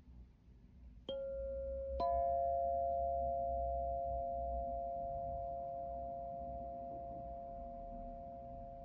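Two struck sound-bath tones, one about a second in and a second, higher one a second later, each ringing on as a pure, bell-like note; the two notes sound together and slowly fade.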